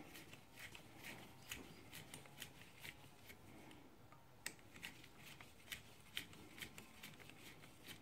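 Faint, regular clicking, about two or three clicks a second, as a 5 mm Allen-key socket on an extension bar is spun by hand to wind the pad pins into a rear brake caliper.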